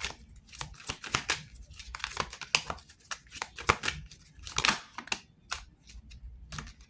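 A deck of reading cards being shuffled and handled: irregular quick papery clicks and rustles.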